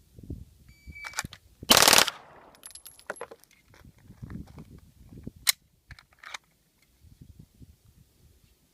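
A shot timer beeps about a second in. About a second later a Glock 18 machine pistol fires its six 9mm rounds in one very fast full-auto burst lasting about a third of a second. Smaller clicks and knocks follow, one of them sharp, a few seconds later.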